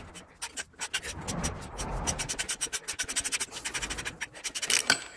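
Adjustable wrench working the centre bolt of a gear puller on a toothed engine timing pulley that is tight on its shaft: a fast run of metallic clicks and scraping, growing louder near the end.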